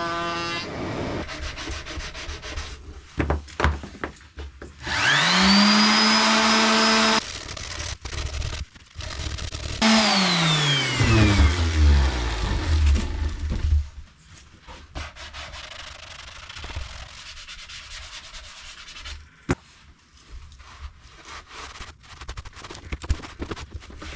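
Handheld electric power tool spinning up to a steady whine, running for a couple of seconds, then winding down. It is followed by quieter scraping and rubbing on wood. A brief steady tone sounds in the first second.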